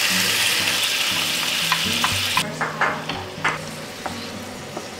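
Tofu and onion hitting a hot oiled frying pan and sizzling loudly. About halfway through the sizzle drops sharply, and a wooden spatula knocks against the pan several times as the food is stir-fried.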